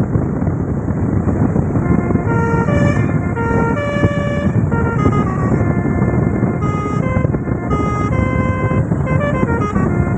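A tour bus's basuri multi-tone musical horn ('telolet') playing a melody of held notes that step from pitch to pitch, with a quicker run of short notes near the end, over loud steady noise.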